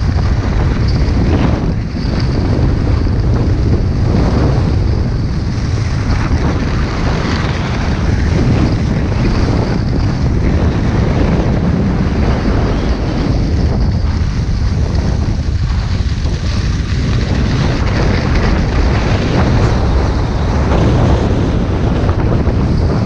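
Loud, steady wind buffeting the microphone of a camera carried down a ski slope, with the hiss of skis sliding over groomed snow underneath.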